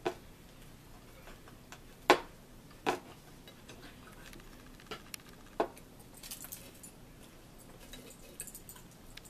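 Forks clinking against plates during a meal: a handful of sharp clicks, the loudest about two seconds in, with lighter ticks of cutlery and scraping between them.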